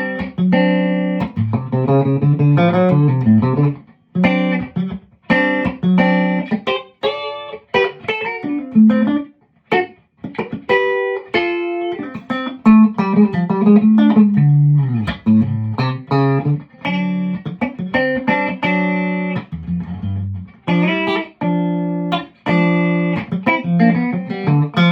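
Tom Anderson Classic electric guitar with its SC stacked-single-coil pickups, neck and bridge together, played clean in short chords and single-note lines, a Telecaster-type funky sound.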